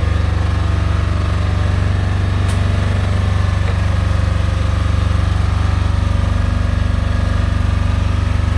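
A loud, steady low machine drone with a fast even pulse, like a running engine. It is loud enough to make talk hard to understand.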